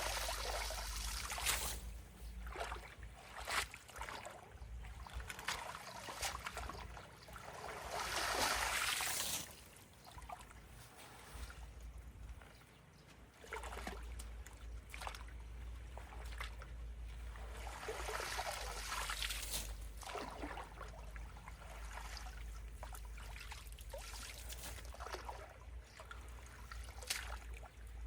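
Water trickling and flowing at a clogged culvert, with scattered splashes and knocks, and two louder swells of splashing water about eight and eighteen seconds in.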